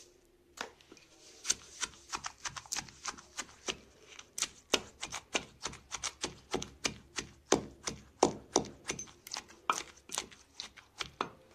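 Kitchen knife chopping food on a cutting board, a steady run of sharp strokes about three a second.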